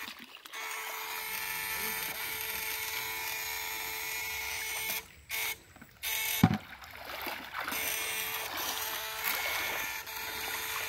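Battery-powered backpack electrofishing rig whining steadily while switched on. The whine breaks off twice briefly about five seconds in, then resumes. A short thump comes about six and a half seconds in.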